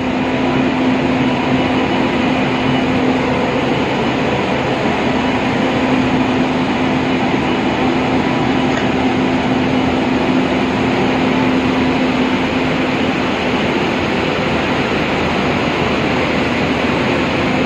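Indian Railways WAG9 electric locomotive running at close range: a loud, steady machinery hum with a constant low tone.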